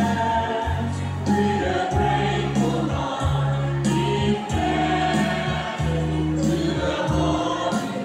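A choir singing a church hymn with amplified instrumental accompaniment, a bass line of held low notes changing about once a second.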